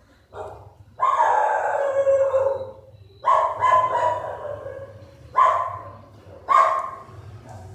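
An animal calling loudly: a short call, then one long wavering call of about a second and a half, then three shorter calls.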